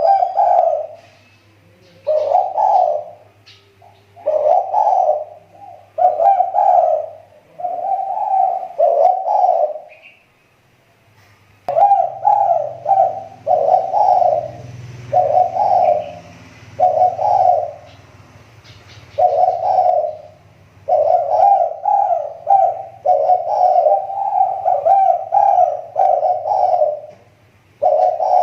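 Spotted dove (tekukur) cooing, phrase after phrase of mellow coo notes with a short break about ten seconds in. It is a lure dove whose voice is coming back into form after a recent drop. Faint chirps of small birds sound in the background.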